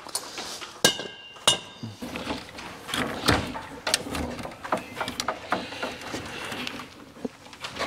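Metal clicks, clinks and knocks of tools and wire being worked inside an electrical breaker panel. Two clanks ring out in the first two seconds.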